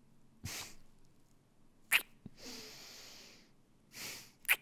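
A man's close-miked breaths with two short, sharp mouth sounds, one just before 2 s and one near the end, and a longer soft hissing breath between them.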